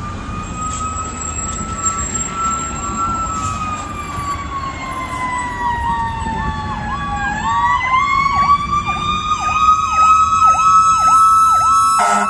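Fire engine sirens approaching and growing louder. One siren wails slowly, falling to a low pitch and climbing back up, while a second siren yelps rapidly over it. A loud horn blast starts right at the end.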